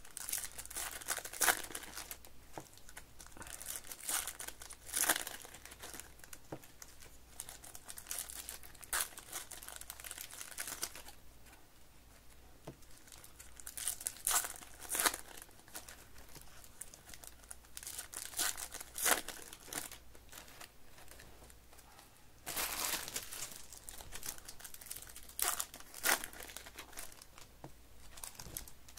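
Foil wrappers of 2023 Topps baseball card packs crinkling and tearing as packs are ripped open and the cards handled, in irregular bursts every few seconds.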